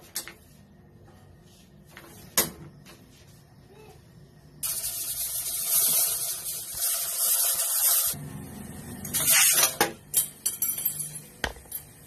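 Stainless-steel pressure cooker venting steam: a loud hiss starts suddenly, runs about three and a half seconds and cuts off, then comes back in shorter spurts. A single knock comes a few seconds before the hiss.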